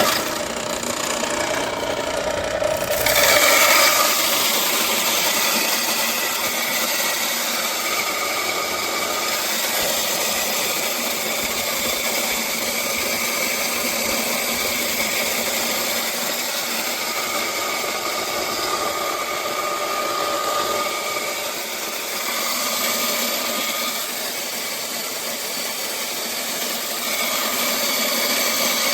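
Snowtaros 3000 W electric grain grinder running and milling dry corn: a loud, steady whir that starts abruptly. It swells briefly about three seconds in, then holds level.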